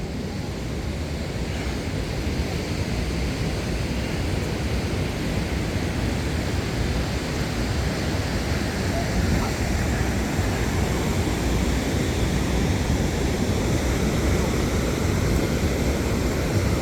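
Ocean surf breaking and washing in, a steady rushing noise with wind on the microphone, growing slightly louder.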